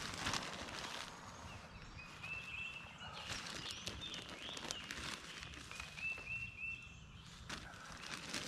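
A bird sings a short phrase of about four quick repeated chirps, once about two seconds in and again about six seconds in. Underneath are scattered rustles and scrapes from work in the garden.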